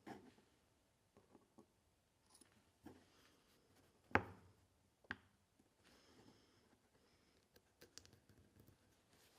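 Near silence broken by a few scattered light clicks and knocks, the sharpest about four seconds in.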